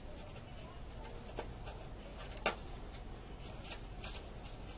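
Cardstock being handled and folded by hand: faint paper rustling with a few light taps, the sharpest about two and a half seconds in.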